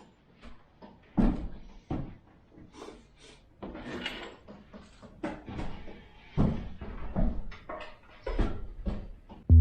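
Irregular knocks and clanks of hand tools and metal parts being handled during repair work, the loudest about a second in and again around six and a half seconds in.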